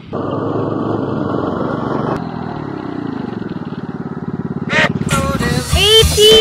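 Go-kart's small engine running as the kart drives. About two seconds in it drops to a slower, evenly pulsing run. Voices come in near the end.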